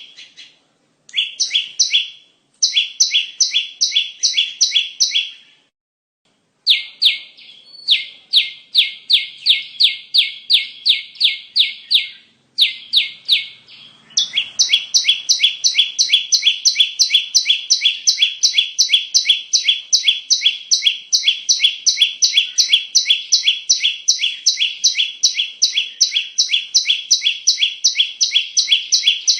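Perenjak (prinia) song used as a bird-call lure: rapid, sharp repeated chirping notes, several a second. Phrases are broken by short pauses at first, then about halfway through it runs on without a break.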